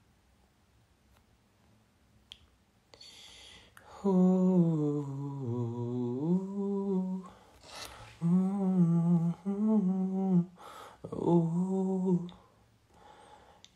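A man humming a slow tune to himself. It begins about four seconds in after a short stretch of near silence, in held notes that slide up and down, with brief gaps between phrases.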